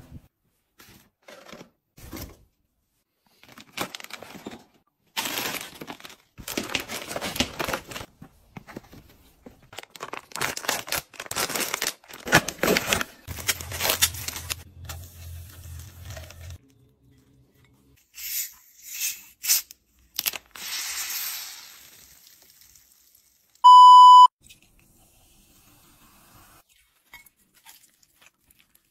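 Food packaging being torn open and crinkled in irregular bursts as snacks are unwrapped and handled. One loud electronic beep about three-quarters of the way through.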